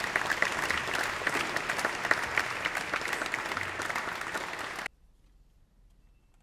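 Audience applauding with dense, steady clapping, which stops abruptly about five seconds in and gives way to near silence.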